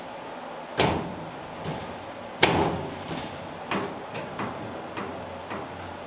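Steel hood of a 1938 Ford being pushed down onto its latch: two sharp metal thumps about a second and a half apart, the second the loudest, then a few lighter knocks.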